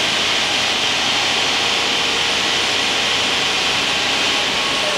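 Mori Seiki Duraturn 2550 CNC lathe spindle spinning at about 2,000 RPM, a steady whir and hiss with some belt noise from the spindle drive.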